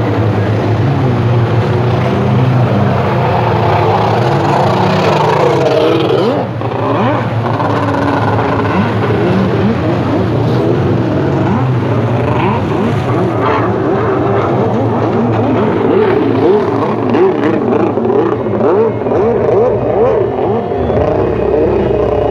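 Several racing personal watercraft (aquabikes) running at speed together, their engines revving, with many pitches wavering up and down at once.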